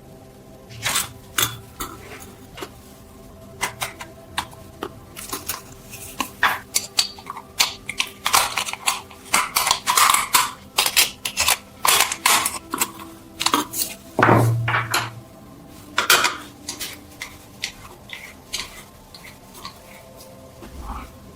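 Metal parts and hand tools clinking and knocking against each other and a work surface in an irregular clatter, busiest in the middle, with one heavier knock about two-thirds of the way through.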